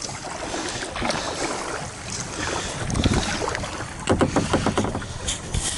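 Kayak paddle strokes splashing in lake water as the kayak is paddled back up to speed, with wind noise on the microphone.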